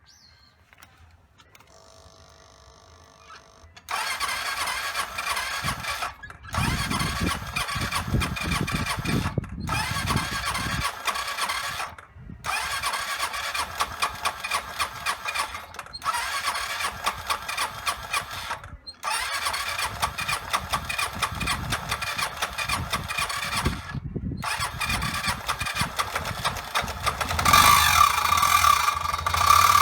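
Suzuki Address V125 scooter's single-cylinder engine running with a rapid mechanical clatter, an abnormal noise of the kind taken as a sign of wear or a fault. It comes in loud about four seconds in and breaks off briefly several times, growing louder near the end.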